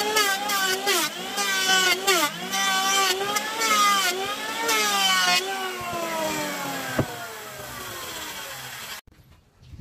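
Electric hand planer cutting a hardwood block, its motor whine dipping in pitch under load with each bite and recovering. About five and a half seconds in it is switched off and winds down in a long falling whine, with a single click about a second and a half later.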